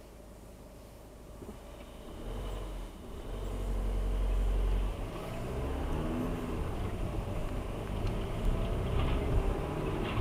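Car engine heard from inside the cabin, idling quietly at first, then revving up as the car pulls away from a standstill about two seconds in. After a brief dip near the middle it settles into a steady engine and road noise while driving.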